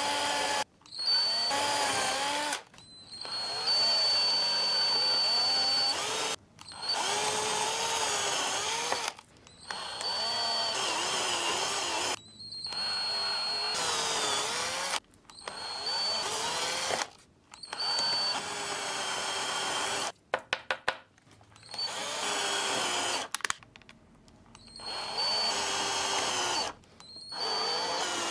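Cordless drill with a 3 mm bit drilling small holes through thin steel sheet. It runs in repeated bursts of two to three seconds with short pauses between, each burst a high motor whine whose pitch wavers as the bit cuts. About two thirds of the way through comes a quick string of very short bursts.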